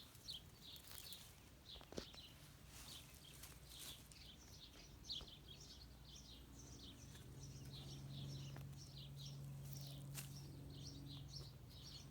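Small birds chirping quickly and continuously in the background, faint. A low steady drone comes in and grows a little louder about halfway through, and a few soft clicks sound now and then.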